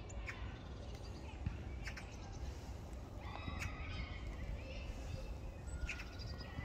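Outdoor ambience: a steady low rumble with distant high-pitched calls several times, the most prominent about three to four seconds in and again near the end.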